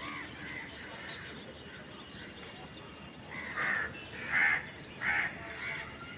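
Three loud, harsh bird calls in quick succession starting about three and a half seconds in, over fainter bird chirping throughout.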